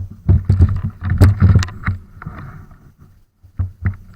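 Irregular low rumbling thumps and sharp knocks from wind buffeting and handling on the camera microphone, with a short lull about three seconds in.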